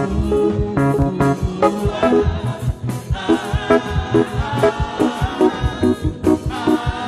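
Live gospel music: a church band playing an upbeat rhythm with drums and short, evenly repeated chords, with long sung or held melody notes over it from about three seconds in.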